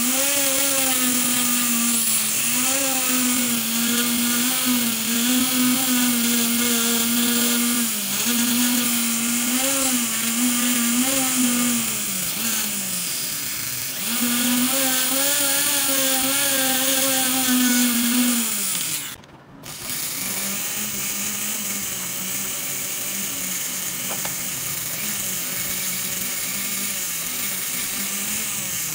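Jeweler's rotary handpiece spinning a fine bur against an 18k gold earring, its steady whine wavering in pitch. It winds down about twelve seconds in, starts again, and winds down once more about nineteen seconds in; after a brief drop-out it runs on at a lower, steadier pitch.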